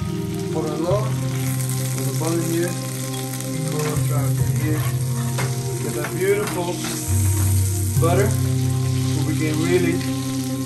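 Fish sizzling as it pan-fries in a hot pan of olive oil, under background music with a bass line that steps to a new note every second or few.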